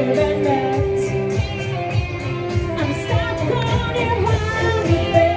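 Pop music with a singer and guitar, played through a bar's loudspeakers, over a steady beat.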